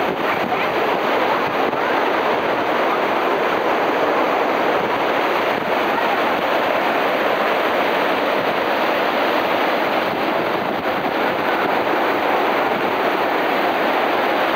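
Shallow mountain river rushing over boulders in rapids: a steady, loud hiss of white water that holds unchanged throughout.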